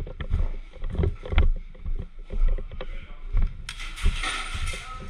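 Irregular knocks and rustling, the sound of a player on the move handling gear, with a louder hissing rustle lasting about a second near the end.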